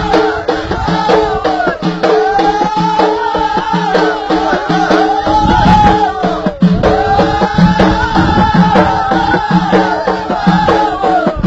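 Ahidous, Amazigh folk song: voices chanting long phrases over bendir frame drums beating a steady rhythm. The singing breaks off briefly about six and a half seconds in.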